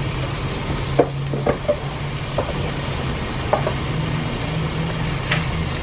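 Onion-tomato masala sizzling and bubbling in vegan butter in a frying pan, with a few scattered pops, over a steady low hum.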